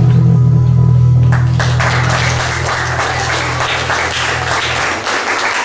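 Recorded music holds a low sustained note that fades out near the end. About a second in, a crowd starts applauding and keeps clapping.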